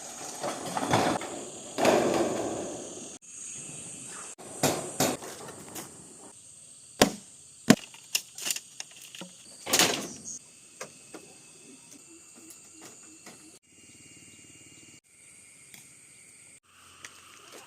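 Handwork sounds: rustling and scraping swells with a few sharp knocks in the middle, over a steady high-pitched insect drone.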